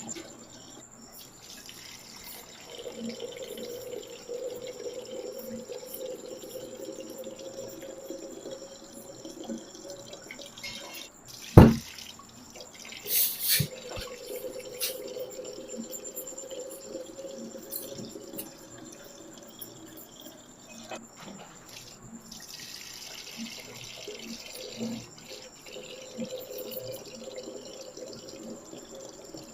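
Purple kinetic sand being cut and scooped with a melon baller: a steady soft crumbling, trickling crackle, with one sharp knock a little before the middle.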